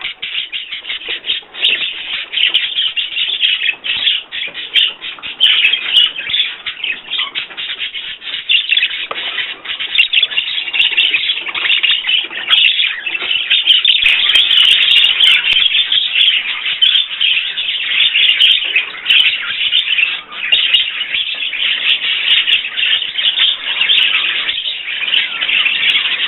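Small cage birds kept indoors chirping and chattering without a break, their calls overlapping into dense high-pitched twittering.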